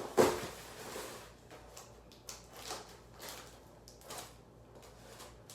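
A cardboard shipping box being handled and opened: one sharp thump just after the start, then a string of short scraping and rustling noises.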